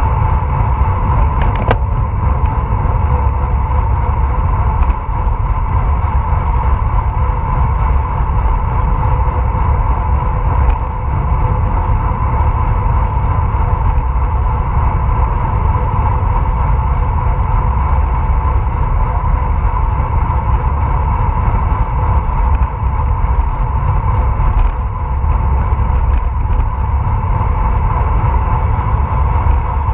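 Steady wind rush and road rumble on the microphone of a bicycle-mounted action camera while riding, with a steady hum and a few faint clicks.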